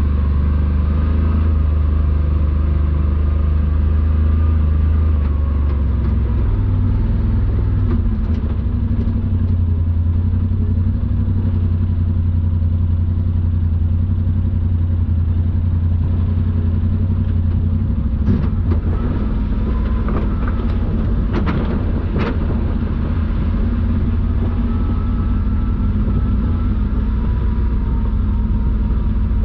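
Side-by-side UTV engine running steadily, its low note shifting about six seconds in. A few sharp knocks or clatters come between about 18 and 22 seconds in.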